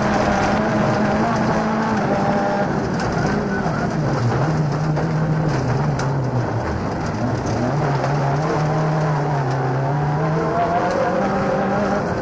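Rally car engine heard from inside the cabin under way, its note dropping about four seconds in, then climbing again and holding before another dip near the end.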